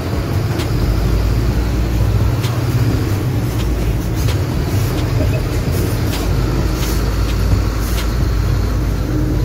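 Floodwater rushing down a street in heavy rain: a loud, steady rushing noise with a deep rumble underneath and scattered sharp ticks.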